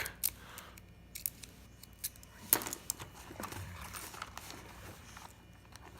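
Faint, scattered metallic clicks and scrapes of a lock pick and tension wrench working the pins of a padlock, with one sharper click about two and a half seconds in.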